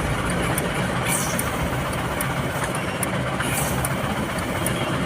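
Truck engine idling steadily, with scattered light clicks on top.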